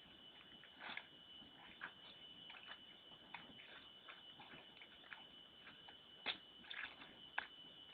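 A bear working at food in a hole, making faint, irregular wet clicks and drips, a few a second, with a couple of louder ones after about six seconds; the uploader wonders whether the hole has filled with water. A steady high whine runs underneath.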